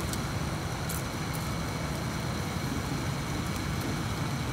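Steady low rumble of traffic, with faint crackles from pork giblets grilling over charcoal.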